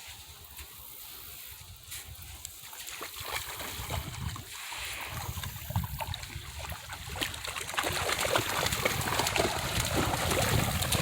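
Shallow creek water splashing and sloshing in many small irregular splashes, growing louder and busier about halfway through.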